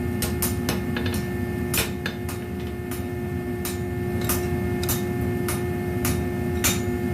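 Hammer striking a hot horseshoe on an anvil while the heel is forged: sharp, irregular metallic blows about one or two a second, over a steady hum.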